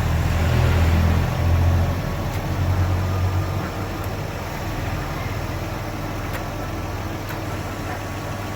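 Hyundai Tiburon GT's V6 engine running, with a louder low hum for the first three seconds or so before it settles to a steady idle.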